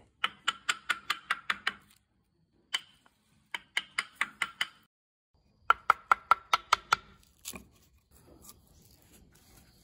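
Steel chisel being knocked into the rotten, bark-filled crack of a tree-stump vase blank to chip it out. The sharp, ringing knocks come in three quick runs of about six to eight, roughly five or six a second, with a single knock between the first two runs. Fainter scraping and knocks follow near the end.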